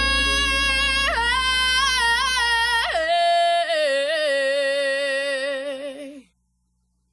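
The end of a gospel song: a held chord with deep bass, under a female voice that slides and wavers between notes. The bass drops out about three seconds in, the voice carries on alone with vibrato, and it fades out about six seconds in, leaving silence.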